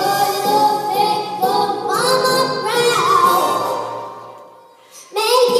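A five-year-old girl singing a show tune with musical accompaniment. About three seconds in, a held note slides down and the sound fades to a short lull, and the singing and music come back loudly near the end.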